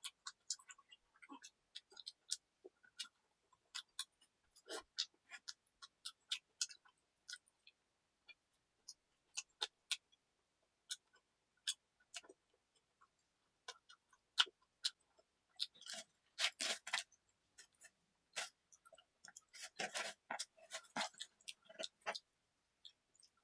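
Quiet close-miked chewing of pizza: scattered short wet mouth clicks and crunches. Denser rustling and tearing comes twice in the later part, the second time as a new slice is pulled apart in the cardboard pizza box.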